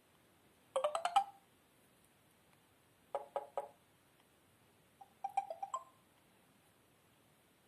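A Samsung Galaxy Pocket phone's speaker playing three short notification tones one after another, each a quick run of chiming notes lasting under a second, about two seconds apart.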